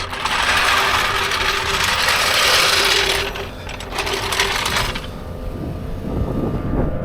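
Impact wrench running on the wheel's lug nuts: a dense mechanical rattle for about three seconds, then a shorter burst about four seconds in.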